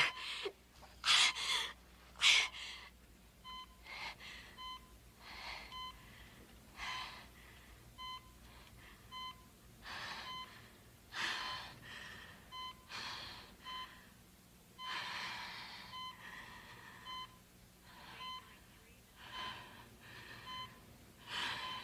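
A woman sobbing and gasping, with a medical monitor beeping at a steady pace of about one beep a second, starting a few seconds in.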